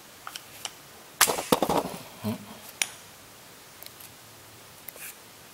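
A few light metal clicks, then about a second in a sharp crack with a short clatter as the press-fit casing of a Philips 3 W E27 LED bulb is forced apart with a 26 mm metal socket, followed by a duller knock and a few lighter clicks.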